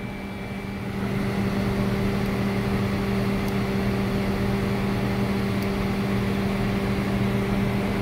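Panasonic inverter microwave oven running, its 2M261-M39 magnetron humming steadily, a little louder from about a second in. The hum is a failing magnetron that the inverter keeps trying to run; the owner concludes the magnetron is bad.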